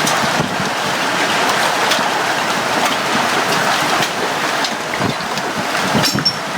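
Heavy hail pelting down: a dense, steady clatter of stones striking surfaces, with a few sharper, louder strikes near the end.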